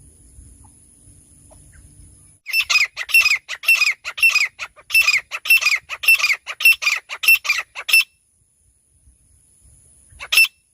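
Francolin calling: a rapid run of about a dozen loud calls, each sliding slightly down in pitch, lasting about five seconds, then a single call near the end.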